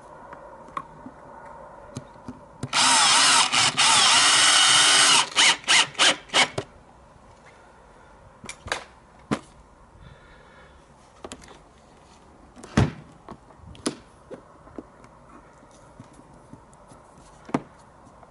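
Cordless drill-driver driving a screw into the uPVC window frame: one steady run of about two and a half seconds with the motor pitch wavering, then several short trigger blips as the screw seats. Scattered light clicks and knocks follow.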